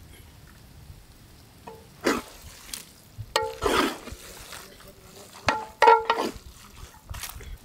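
Metal ladle stirring noodles in a large metal cooking pot: scraping swishes and a few sharp, ringing clanks of metal on metal, two of them close together past the middle.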